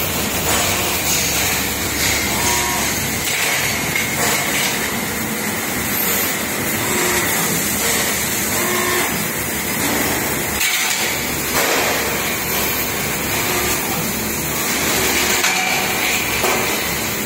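Steady machinery hum and hiss in a sheet-metal workshop around a running CNC press brake, with no distinct strikes or bends, and a few faint short tones now and then.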